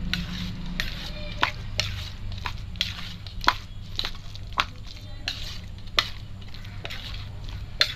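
Metal spoon stirring and mashing a thick boiled potato and chickpea filling in a stainless steel bowl, with irregular clinks and scrapes against the bowl a few times a second.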